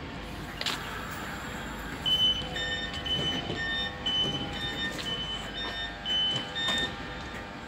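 Electronic warning beeper on a railway platform, sounding a rapid run of short beeps that alternate between pitches for about five seconds, starting about two seconds in, over the steady hum of a train standing at the station. A single knock comes just before the beeping.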